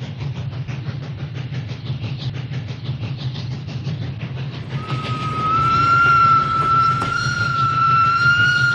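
Motorized plastic toy train running along its plastic track: the small motor hums and the wheels and gears click rapidly. About five seconds in, a steady high electronic tone starts and holds.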